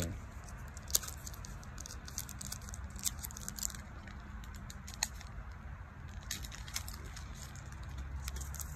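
Foil booster-pack wrapper crinkling and crackling in the hands as it is worked open, in scattered sharp crackles bunched in the first few seconds and again near the end, over a low steady rumble.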